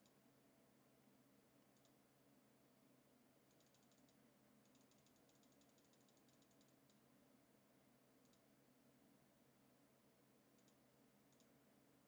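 Faint computer mouse clicks with runs of rapid, notched scroll-wheel ticking about four to six seconds in, over near silence.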